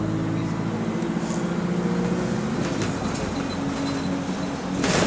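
Alexander Dennis Enviro200 single-deck bus heard from inside the cabin, its diesel engine running with a steady drone whose note drops and changes about halfway through. A short burst of hiss comes near the end.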